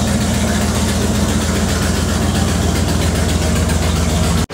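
Idling 454 V8 of a GMC squarebody dually pickup, running steadily and evenly.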